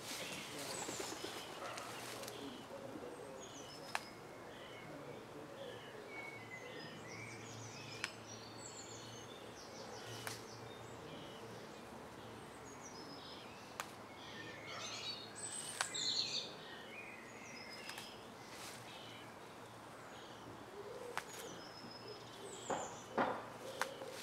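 Small songbirds chirping and singing over a steady low hum of distant traffic. A few sharp clicks come through, and near the end there is rustling as leafy plants are pushed through.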